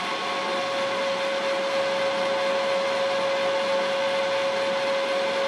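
Van Norman milling machine running with an end mill in the spindle: a steady motor and drive hum with a constant whine over it.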